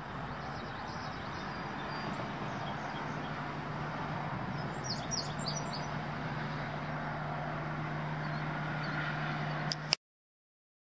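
Steady outdoor background noise with a low steady hum, and a few short bird chirps about five seconds in. It cuts off abruptly with a click near the end.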